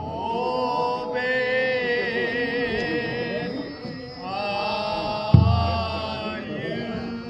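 Kiyari, the traditional Japanese work chant, sung in long drawn-out notes that waver in pitch, with a short break near the middle before the next phrase. A sudden low thump about five seconds in.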